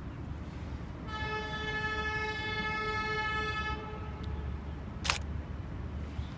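Chinese DF4 diesel locomotive's air horn sounding one long, steady multi-note blast of about three seconds from the approaching train, over a low rumble. A single sharp click about five seconds in.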